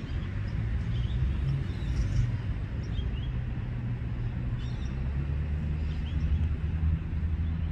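Low, steady rumble of road traffic, a vehicle engine running close by. A few faint, short high bird chirps come through now and then.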